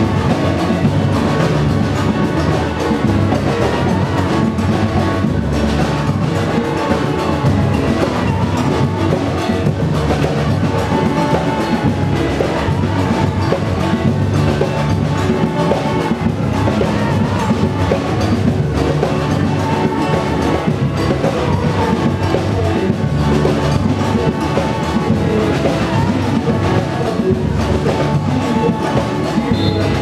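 Live carnival-style band playing: large bass drums and other percussion keep a steady beat under guitars and voices.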